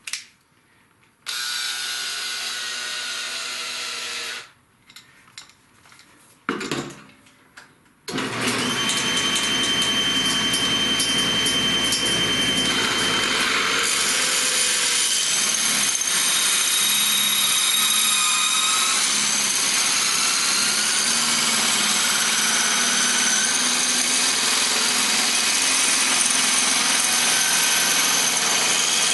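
A Makita cordless drill spins up and runs steadily for about three seconds, then stops. After a couple of knocks, a table saw starts suddenly about eight seconds in and runs steadily, while the drill turns a wooden blank through a jig against the blade to cut it into a round dowel.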